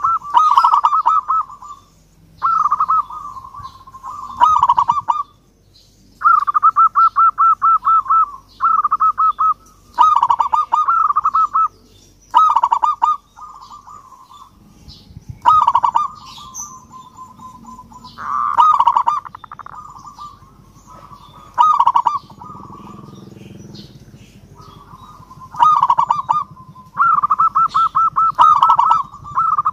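Zebra dove cooing: repeated bursts of quick, rolling notes, each burst a second or two long, with short pauses between them.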